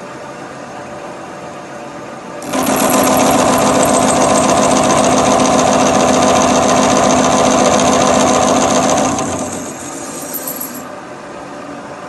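Milling machine's cutter cutting the face of a steel surgical knife blank: a loud, dense cut with a steady whine and a rapid chatter, starting about two and a half seconds in and stopping about seven seconds later, over the machine's running hum.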